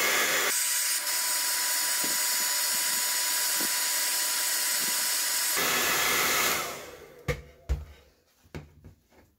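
Handheld hair dryer blowing at a steady pitch, a thin whine running through the rush of air; it is switched off about six and a half seconds in and spins down. A few thumps follow as it is set down on a cutting mat.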